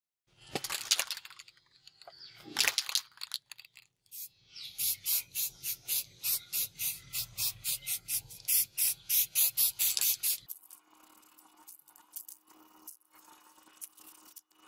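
Aerosol can of silver spray paint shaken hard, its mixing ball rattling quickly at about five clacks a second for several seconds, followed by a faint, steady spray hiss as the paint goes on. Two short hissing noises come before the shaking.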